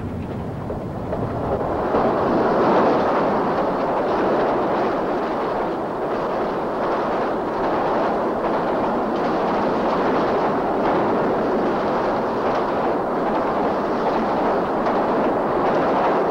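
Steam locomotive running at speed, heard from inside the cab: a steady rushing din of exhaust, running gear, rails and wind, growing a little louder about two seconds in.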